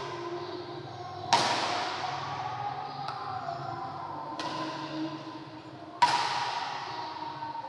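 Badminton rackets striking a shuttlecock in a rally: two sharp loud hits about a second and a half in and near the end, with a fainter one between, each echoing in a large sports hall.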